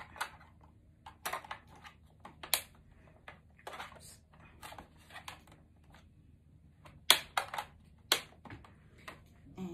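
Plastic clicks and knocks of C-size batteries being pressed into the battery compartment of a SureFeed microchip pet feeder as the housing is handled, with a cluster of sharper clicks about seven seconds in.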